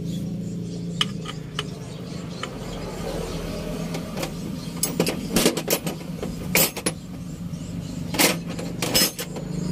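Scattered sharp metallic clinks of hand tools against engine parts during timing-belt work, a few in quick succession around the middle and near the end, over a steady low hum.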